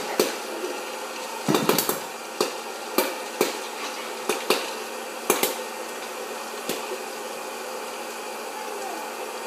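Hot-air popcorn popper's fan blowing steadily while kernels pop with sharp, irregular cracks, a cluster at first, then growing sparse in the second half: the batch is nearly done.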